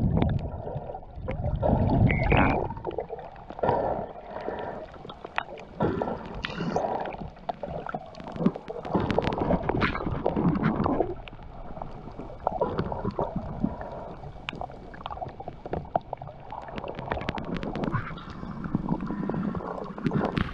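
Muffled water noise picked up by a camera held under the surface: irregular surges of gurgling and sloshing, with many scattered sharp clicks.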